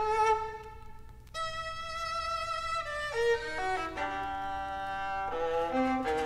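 Strings of a chamber ensemble (two violins, viola and cello) playing: a held note fades away about a second in, a violin enters on a new sustained high note, and from about three seconds in several instruments move together through changing notes.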